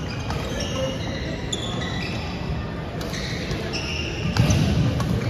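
Badminton play in a large gym hall: sharp racket-on-shuttlecock hits and short high-pitched sneaker squeaks on the hardwood court, ringing in the hall.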